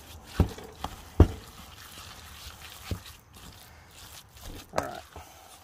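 Wooden spoon stirring a wet mince mixture in a stainless steel bowl: a soft squelching, with four sharp knocks of the spoon against the bowl, the loudest about a second in.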